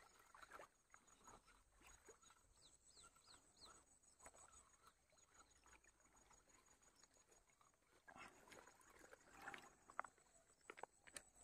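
Near silence: faint outdoor quiet, with a few faint high chirps about three seconds in and scattered small clicks and rustles near the end.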